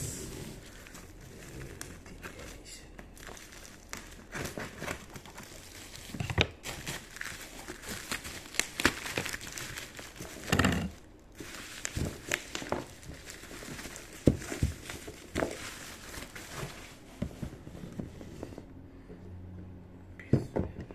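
Packaging crinkling and rustling as a boxed brake master cylinder is unpacked and handled, with scattered short knocks and clicks.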